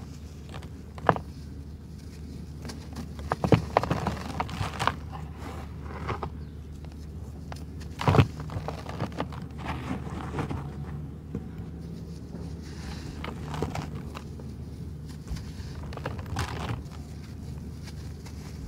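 Dry red sand-cement chunks crushed and crumbled by hand in a plastic tub: sharp gritty crunches as lumps break, near the start, about a second in, around three and a half to four seconds and again around eight seconds, with softer rustling and sifting of the powder in between. A faint steady low hum sits underneath.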